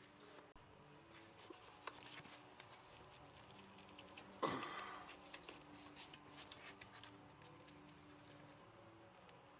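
Faint, scattered clicks and light taps of hand tools and metal parts being handled on an engine, with one louder metallic clink about four and a half seconds in.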